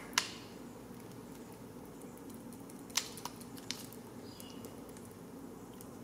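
A few small sharp clicks as the plastic ASC throttle actuator and its new cable are handled and worked into place: one just after the start, another about three seconds in and two fainter ones soon after, over a steady low hum.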